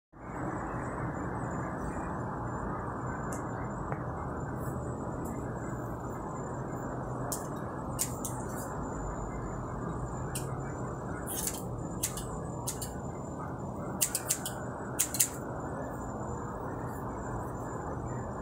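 Scissors snipping hair in short, sharp clicks, a few at a time and more often in the second half, over a steady background rush.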